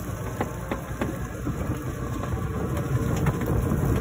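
Fishing boat's engine running steadily under way, with a few light clicks over the rumble.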